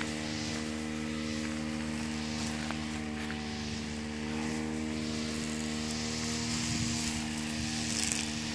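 Petrol brush cutter's small engine running at a steady speed, an even drone that doesn't rev up or down.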